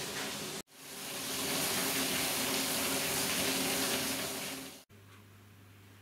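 Water pouring down through a wooden water wheel: a steady rushing splash that fades in about a second in and cuts off abruptly near the end. Before it, a brief mechanical hum; after it, a much quieter room with a low steady hum.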